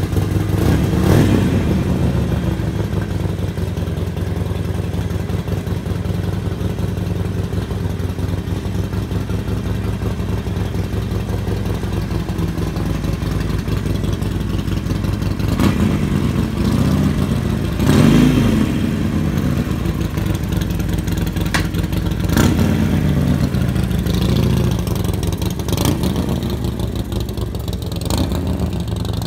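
Harley-Davidson Sportster Forty-Eight's air-cooled 1200 cc V-twin idling, with several blips of the throttle, the loudest about eighteen seconds in, then pulling away near the end.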